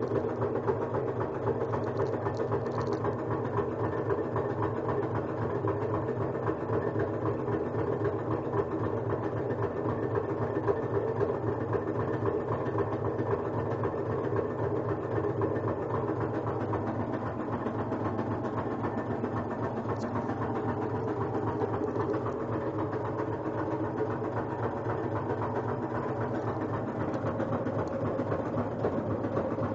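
Kenmore front-load washing machine in its spin cycle, running with a steady loud mechanical rattling noise. It sounds as if the drum is hitting something or a belt is touching something, which the owner suspects.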